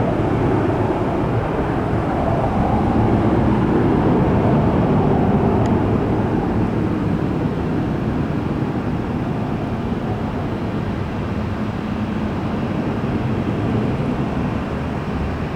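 McDonnell Douglas MD-88 jetliner's Pratt & Whitney JT8D-219 low-bypass turbofans at takeoff power: a loud, steady rumble that slowly fades a little as the aircraft pulls away.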